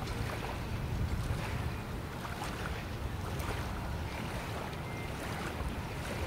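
Wind buffeting the microphone: a steady, unpitched low rumble that swells and eases, with a few faint ticks above it.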